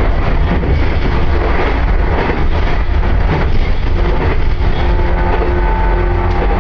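Running noise of a train heard from inside the carriage: a loud, steady, low rumble of wheels on the rails, with a faint steady hum joining about four seconds in.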